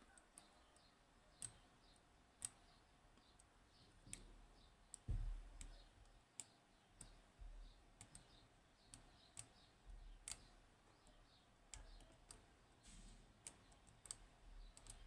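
Faint, irregular sharp clicks of a lock pick probing the pins of a Yanai R 2200M high-pin-count lock, with a few dull low bumps of handling.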